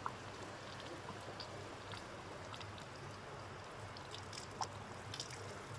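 Running water of a spring-fed stream: a steady rush of flowing water with small splashes and drips scattered through it.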